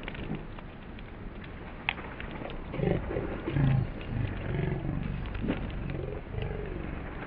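A drawn-out, roar-like voice rising and falling in pitch, several times in a row from about three seconds in.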